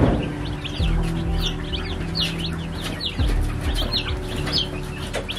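Day-old naked-neck chicks peeping in the brooder: many short, high chirps overlapping, several a second, over soft background music. A brief thump right at the start.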